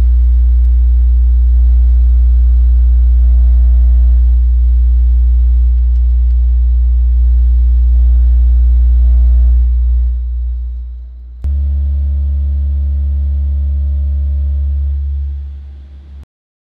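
A pair of Audiomobile EVO2410 10-inch shallow-mount subwoofers in an under-seat box inside a pickup cab, playing a steady 60 Hz sine test tone at about 130 dB SPL. The tone fades out about ten seconds in. A 70 Hz test tone then starts abruptly and cuts off suddenly about five seconds later.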